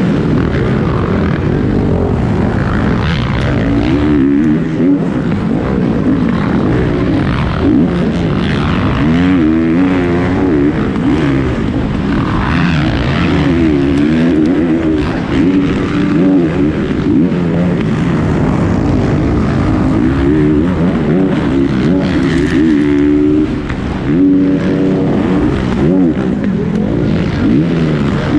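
A 450 motocross bike's four-stroke engine, heard on board, revving up and down over and over as it is throttled and shifted around the track.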